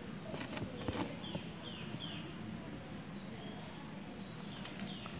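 Low room noise with faint high chirps from a small bird, two groups of three short falling notes, and a couple of light knocks near the start.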